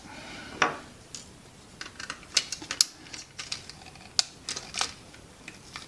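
Irregular small clicks and taps of hard plastic and wiring being handled as the receiver circuit board is worked loose from a radio-controlled toy car's plastic chassis.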